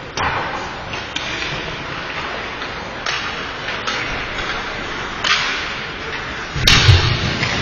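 Ice hockey play in an echoing rink: sharp clacks of sticks and puck at irregular moments, with a heavier thump near the end.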